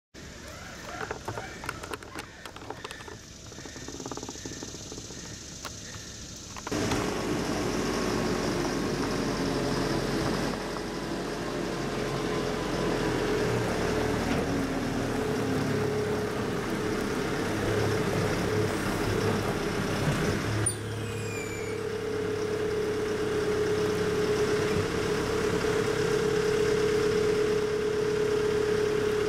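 Genie GTH-844 telehandler's diesel engine running as the machine drives up to a flatbed trailer, with a steady whine that grows stronger about two-thirds of the way through. About the first seven seconds hold only quieter outdoor background with a few clicks, before the engine sound comes in abruptly.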